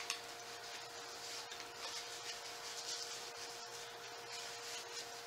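Close-up eating sounds: crisp rustling and crunching from pizza being chewed and a paper napkin being wiped, with a couple of sharp clicks right at the start.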